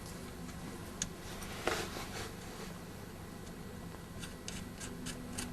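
Small metal parts being handled as a zinc-plated information tag is fitted to a car's rear differential: a single click, a brief scrape, then a run of light ticks near the end.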